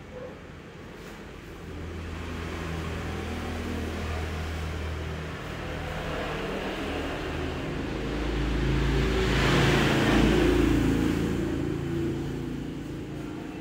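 A motor vehicle's engine running, a steady low hum that swells to its loudest a little past the middle and then eases off again.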